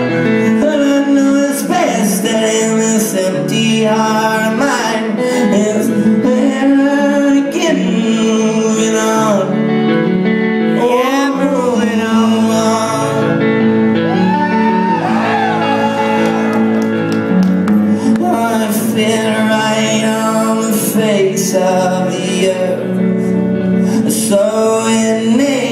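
Live rock band playing loudly in a large hall, with electric guitar and a male voice singing over the band.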